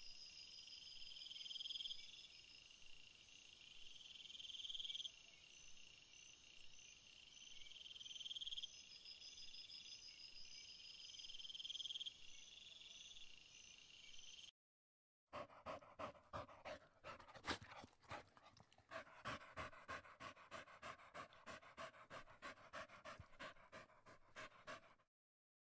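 A chorus of high, insect-like trills, one note repeating about every two seconds, runs for the first fourteen seconds or so. After a short silence, an animal pants rapidly and rhythmically, about three breaths a second, stopping shortly before the end.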